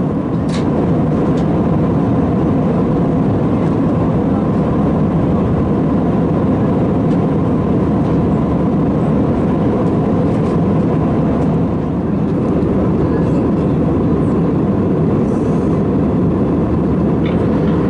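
Steady jet airliner cabin noise at cruise, an Airbus A320-family jet's engines and rushing airflow heard from a window seat, with a faint steady whine over it.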